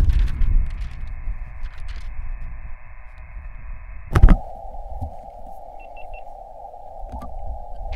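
Elecraft KX2 transceiver's receiver hiss on 20 meters, empty band noise while listening for a reply to a CQ call. About four seconds in, a knock, and the hiss changes to a narrower, lower band; three faint quick beeps follow about two seconds later.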